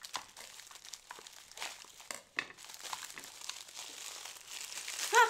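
Plastic packaging crinkling and rustling irregularly as a wrapped toy is handled and unwrapped. A brief vocal sound just before the end.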